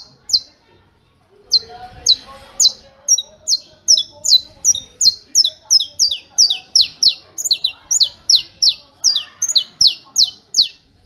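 Saffron finch singing its 'martelo' (hammer) song: sharp, high notes, each slurring quickly downward, hammered out in an even run at about three a second. Two notes open it, then after a pause of about a second the long run goes on until near the end.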